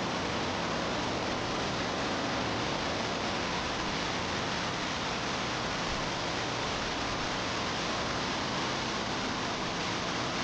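Steady rushing of a waterfall on the Weissbach stream, an even, unbroken noise that fades in just before and then holds level.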